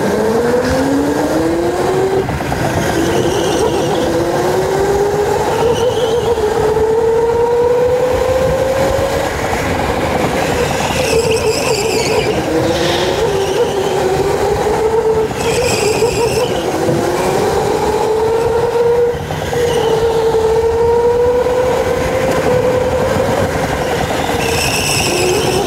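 Electric go-kart motor whining, rising in pitch as the kart speeds up and dropping back as it slows, again and again, over a steady rumble of wheels on the track. A few short high squeals cut in, around the middle and near the end.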